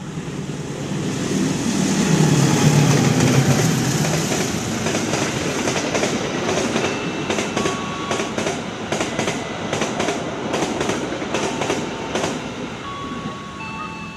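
Diesel-locomotive-hauled passenger express passing at speed. The locomotive's engine swells past in the first few seconds. Then the coaches rush by with rapid clicking of wheels over the rail joints and brief thin squeals, easing off near the end.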